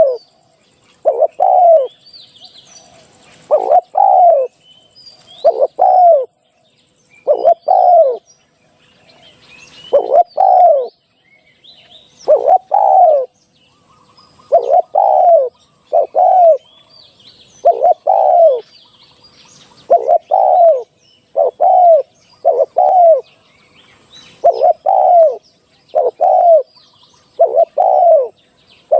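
Spotted dove cooing: loud, throaty coos, each bending down in pitch at the end, repeated in pairs and threes about every two seconds. Faint chirps of small birds sound higher up between them.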